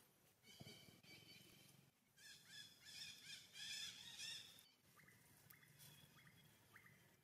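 Faint bird calls: a run of rising-and-falling chirps through the middle, loudest around the middle, then a few short upward chirps near the end.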